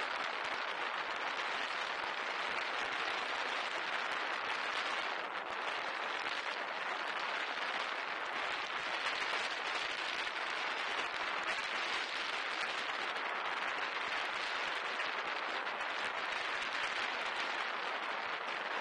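Steady rushing noise of riding a Onewheel Pint along a concrete sidewalk: the board's tyre rolling on the pavement together with wind on the camera's microphone.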